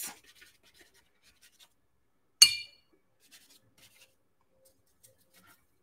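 Faint strokes of a paintbrush on watercolour paper. About two and a half seconds in the brush knocks a hard rim once, a sharp clink that rings briefly at a few high pitches.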